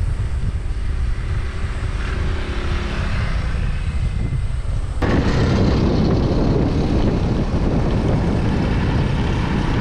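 Riding in an open vehicle: wind rumbling on the microphone over a motor's steady drone. The noise jumps abruptly louder about five seconds in.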